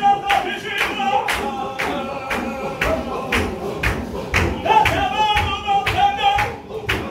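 Qadiri Sufi zikr: a group of men chanting together in long held notes, kept in time by steady hand claps about two or three a second, with low thumps of stamping feet in the middle.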